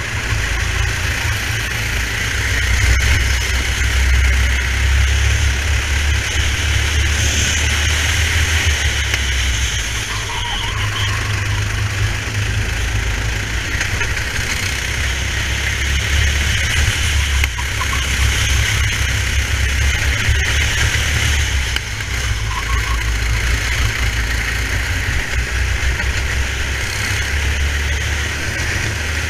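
Racing kart's engine running continuously at speed, heard from a camera mounted on the kart, along with steady wind and tyre noise.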